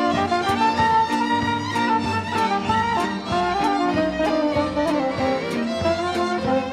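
Romanian folk band playing an instrumental break: clarinet and violin carry the melody over accordion and bass, with a steady beat of about two strokes a second.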